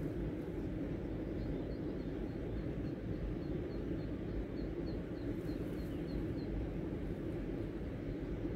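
Outdoor waterside ambience: a steady low rumble, with faint short high chirps repeating about three times a second from about a second in to about six seconds in.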